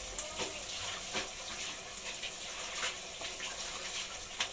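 Oil sizzling steadily in a frying pan as pieces of boiled fish fry, with a few faint ticks.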